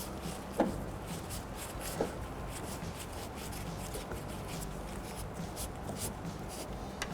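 Hand Phillips screwdriver backing out the door-latch screws: faint scraping and rubbing of hand tool work, with light clicks about half a second and two seconds in.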